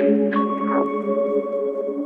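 Background music: soft ambient synth chords held steady, with one struck note about a third of a second in.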